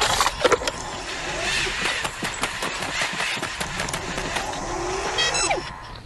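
Humanoid robot's servo motors whirring in rising and falling whines, with many quick mechanical clicks and clunks from its moving joints. A short electronic chirp comes near the end.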